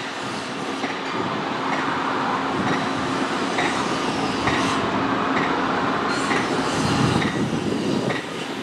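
Rail car rolling along the track, heard from on board: a steady rumble with the wheels clicking over rail joints about once a second.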